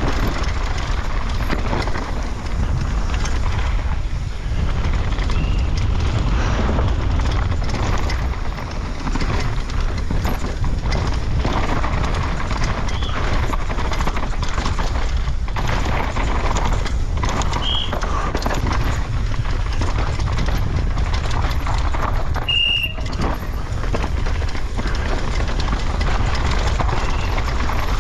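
Mountain bike ridden fast down a rough downhill track on an onboard camera: constant wind rumble on the microphone, with the bike and tyres rattling over the ground. There are two short high squeaks in the second half.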